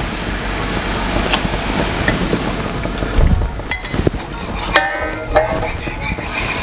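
Lemon syrup bubbling at a rolling boil in a saucepan while a wire whisk stirs in cornstarch slurry. The whisk clinks against the pan a few times about four to five seconds in.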